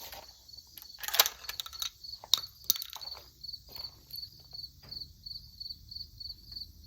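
Crickets chirping steadily in a regular high-pitched pulse, about three chirps a second. A few sharp clicks and rattles of handling come in the first three seconds.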